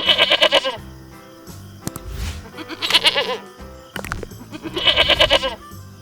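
Goat bleating three times, each bleat about two-thirds of a second long and wavering, over background music.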